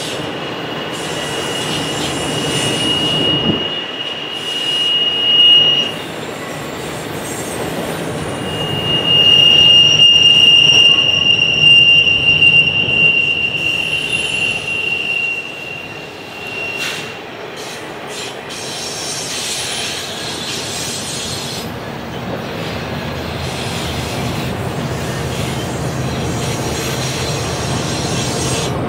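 Double-stack container train's well cars rolling past with a steady rumble. A high, steady wheel squeal sounds for the first six seconds and again, louder, from about nine to sixteen seconds.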